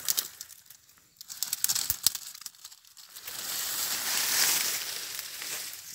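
Dry palm fronds crackling and rustling as they are pulled off a fish trap in a ditch: a run of sharp crackles and snaps, then from about halfway a longer, steady rustling swish.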